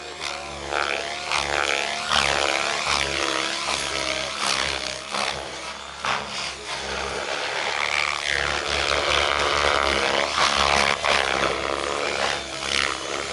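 Radio-controlled helicopter flying 3D aerobatics: its rotor and drive whine rises and falls in pitch over and over, with sharp blade swishes as the manoeuvres load the rotor.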